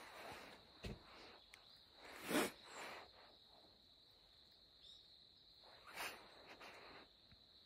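Quiet outdoor ambience with a steady high-pitched insect drone, and a man's short breaths twice, about two and a half and six seconds in.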